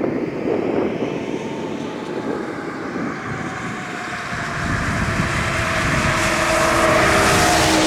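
An engine's hum that builds and grows louder, loudest near the end, with its pitch easing down slightly as it peaks.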